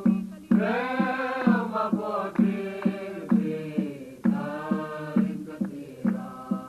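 Mizo choir singing a hymn over a steady drum beat of about two strokes a second; the voices come in about half a second in and drop out near the end, leaving the drum.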